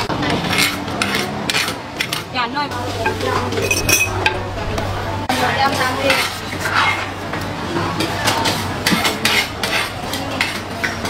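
Metal utensils clinking, knocking and scraping irregularly as a knife cuts kernels off a corn cob into a mortar and a spoon stirs and adds seasoning, over a steady low hum.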